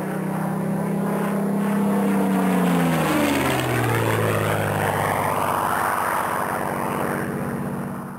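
Single-engined propeller fighter plane flying past low. Its engine drone drops in pitch about three seconds in as it passes, then runs on with a rushing sound and fades out near the end.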